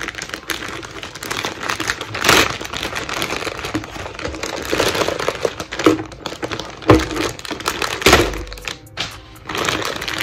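Clear plastic packaging crinkling and crackling as it is pulled open around a plastic spring airsoft gun, with a few louder knocks.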